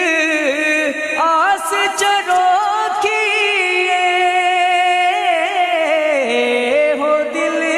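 Voice singing a Punjabi naat, an Islamic devotional song, in long held notes with wavering, ornamented pitch glides and no percussion.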